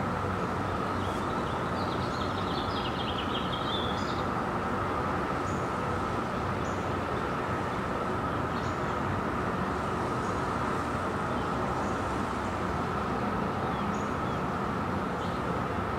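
Steady outdoor dawn ambience: a continuous hum and hiss of distant traffic with an even, unbroken drone. Birds chirp about one to four seconds in, with faint single chirps here and there.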